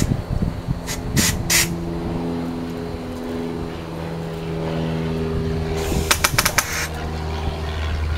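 Homemade compressed-air BB gun firing: three quick sharp air bursts about a second in, then a rapid string of about six shots around six seconds in, fired full auto. A steady engine hum runs underneath.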